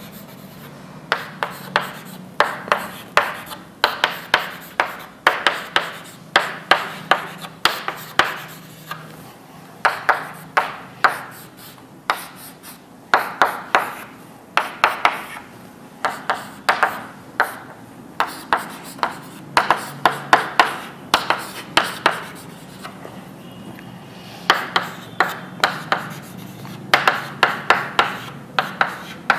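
Writing: a pen or marker making a quick, irregular series of sharp taps and short scratches, with brief pauses, over a faint steady low hum.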